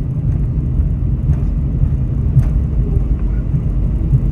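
Steady low rumble of an airliner heard from inside the passenger cabin, with a few faint rattles.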